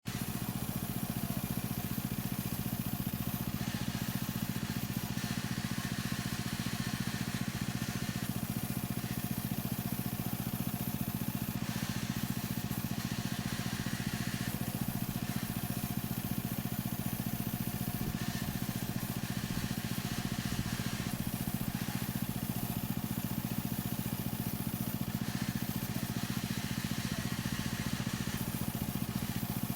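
A plywood cutting machine's motor running with a steady low hum. A higher hiss swells in and fades out in stretches of a few seconds, several times over.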